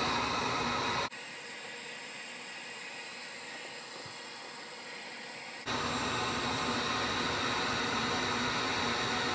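Handheld hot-air blower running on high as a steady hiss while it melts ice off a refrigerator's cooling fins. About a second in the sound drops abruptly to a thinner, quieter hiss, and a few seconds later it comes back just as abruptly.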